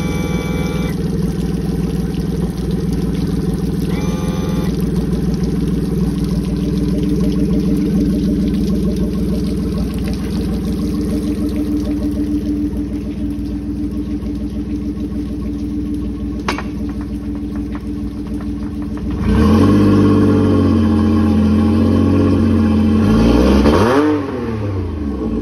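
Suzuki 40 hp four-stroke three-cylinder outboard engine idling steadily, then revved up about 19 seconds in and held higher for about five seconds before falling back to idle near the end.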